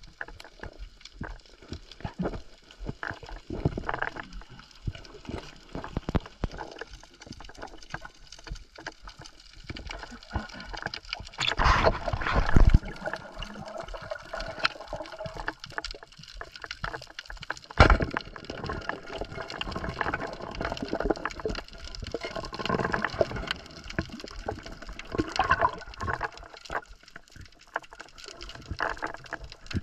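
Underwater ambience: a steady crackle of small clicks, with heavier knocks and thumps, the loudest about twelve seconds in and again near eighteen seconds.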